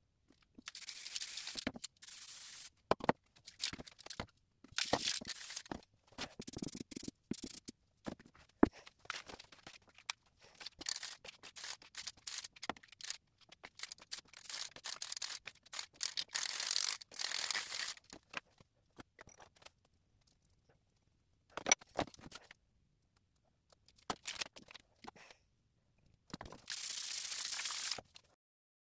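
Aerosol spray paint cans hissing in many short bursts and a few longer sprays, with sharp clicks and knocks between them.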